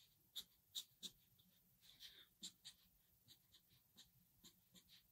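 Thin pen drawing short strokes on paper: a series of quick, faint scratches as little whisker lines are flicked in one after another.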